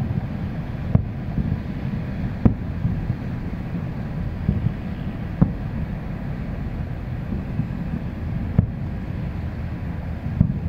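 Distant aerial firework shells bursting: about four separate bangs, spaced a few seconds apart, over a steady low rumble of wind on the microphone.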